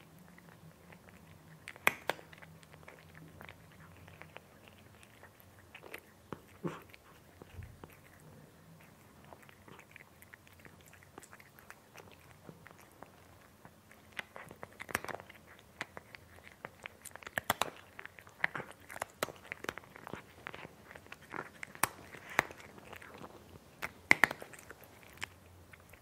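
A cat eating crunchy food, chewing with sharp crunches: only a few separate crunches at first, then steady, frequent crunching from about halfway through.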